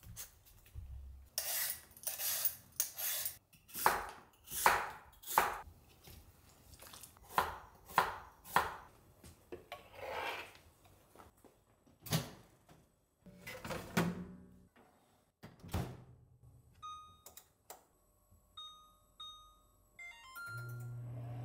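Kitchen clatter: a run of knocks and scrapes of dishes and food being handled. Then a series of short electronic beeps as a kitchen appliance's control panel is pressed, and near the end the appliance's low, steady hum starts up.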